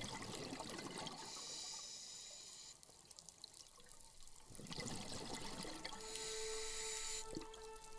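Scuba regulator breathing underwater, twice: a gurgling rush of exhaled bubbles, then the steady hiss of an inhalation through the regulator.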